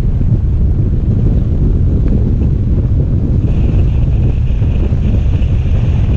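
Heavy wind buffeting on the microphone over the road noise of a 2013 Hyundai Sonata 2.0T driving fast, at about 80 mph. A faint high hiss joins a little over halfway through.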